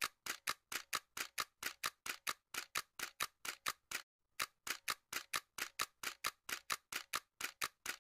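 Typing sound effect: a quick, even run of key clicks at about five a second, with a short pause about halfway through.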